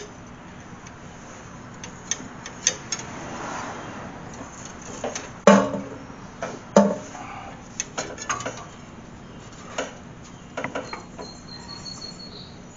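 Scattered clicks, taps and knocks of hand tools and metal parts being handled, with two louder knocks about halfway through. A faint, thin high whistle comes near the end.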